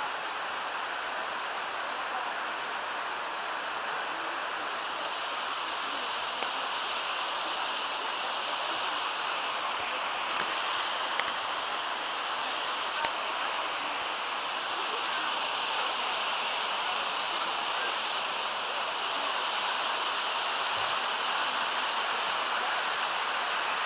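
Steady rush of a mountain creek falling over a cascade of waterfalls, swelling slightly in the second half, with a few brief sharp clicks near the middle.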